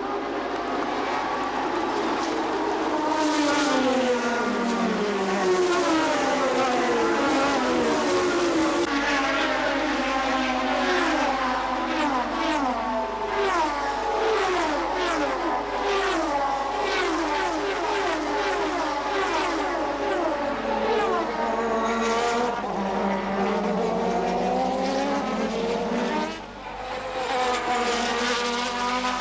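Several 1988 Formula One cars, with turbocharged V6 and naturally aspirated V8 engines, running at racing speed. Their engine notes overlap, each falling and then climbing again again and again as the cars shift through the gears. The sound drops briefly near the end.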